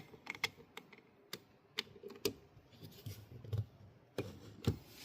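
Scattered light clicks and taps, about a dozen, with a few soft low thumps, from hands handling a device and its charging cable as the plug is pushed in.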